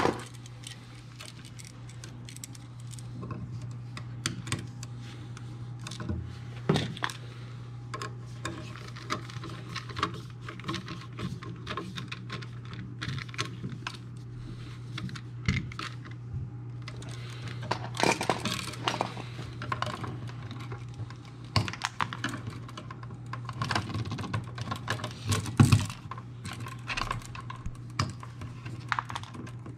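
Irregular small clicks and taps of hand tools on wire: lineman's pliers and a screwdriver working a bare copper ground wire onto a receptacle's screw, with busier clusters of clicks about two thirds of the way in. A steady low hum runs underneath.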